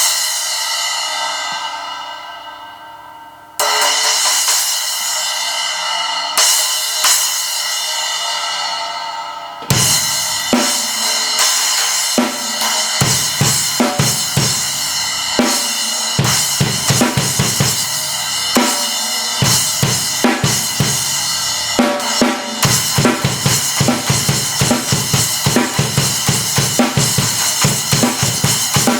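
Zildjian 10-inch A Custom splash cymbal struck three times on its own, each hit left to ring and fade out. About ten seconds in a drum kit joins, playing a steady beat of bass drum and snare with cymbals over it.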